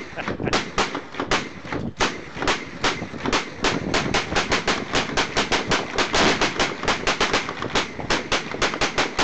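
Gunfire from the firing line of an outdoor shooting range: many sharp shots in quick, uneven succession, about four a second.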